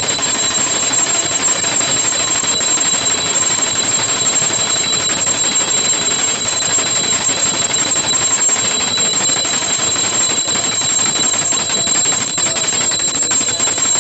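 A puja bell rung rapidly and without pause, giving a dense, loud metallic ringing with a steady high ring over it, as during the aarti.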